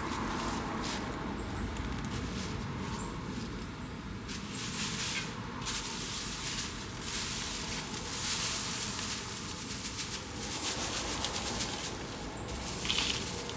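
Hands mixing and turning loose potting mix full of orchid bark, with an irregular crunching rustle.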